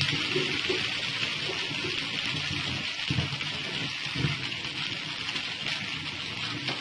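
Noodles and chicken sizzling in oil in a karai as they are stir-fried, a steady hiss, with background music playing.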